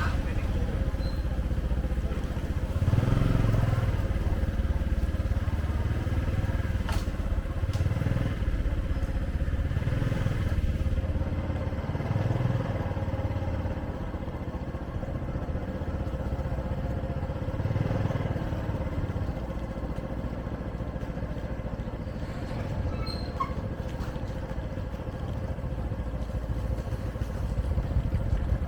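Street traffic with motorcycle engines passing one after another in repeated low swells, over a steady faint hum.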